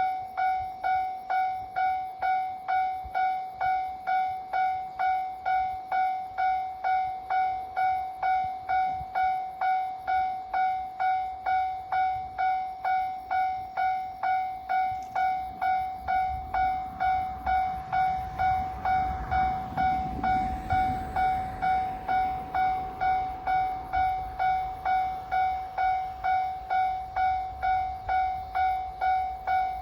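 Japanese level-crossing warning bell ringing steadily at about two rings a second, each ring a clear electronic tone that dies away quickly. A low rumble builds and fades about two-thirds of the way through.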